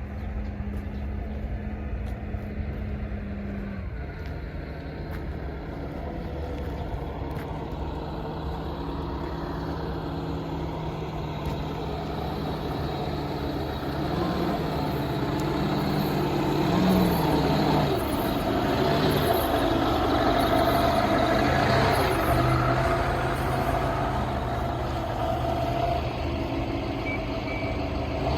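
A large engine running steadily, its pitch stepping up and down several times and its sound growing louder from about halfway through.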